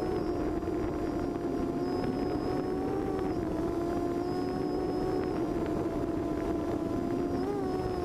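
Quadcopter's four Cobra C2213 2000kv brushless motors spinning 6x4.5 propellers in flight, a steady multi-tone whine heard close up from the onboard camera, over a low rushing noise. The pitch dips slightly about three seconds in and briefly rises near the end as the throttle shifts.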